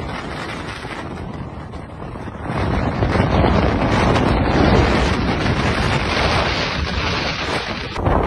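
Storm wind blasting across the microphone over the sound of rough surf breaking, growing louder about two and a half seconds in.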